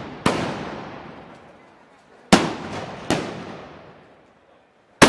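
Gunpowder blasts: four separate loud bangs at uneven intervals, each followed by a long echoing fade.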